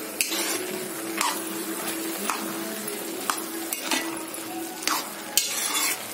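Grated carrots cooking down in ghee and milk in a metal kadhai: a steady sizzle as the milk is reduced, with the stirring spoon scraping against the pan about once a second.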